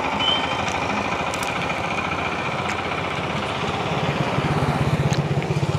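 A small engine running steadily with an even pulse, growing a little louder about four seconds in.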